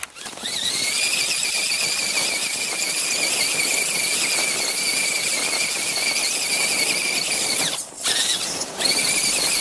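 Brushed electric motor and gearing of an Axial RC crawler whining at high throttle: a steady high whine over a hiss. It cuts out briefly about eight seconds in, then comes back.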